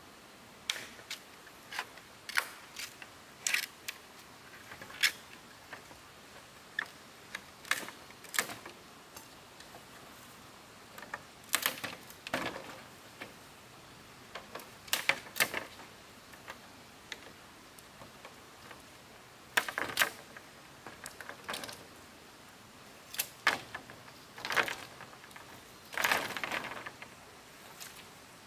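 Irregular light clicks and taps, one every second or so, with a few short scraping rustles among them.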